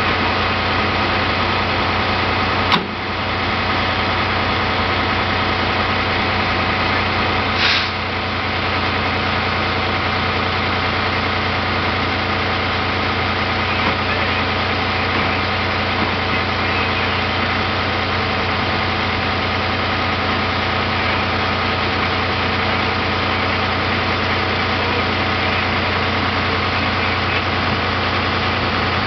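Semi truck's diesel engine idling steadily, with one sharp knock early on and a short hiss a few seconds later.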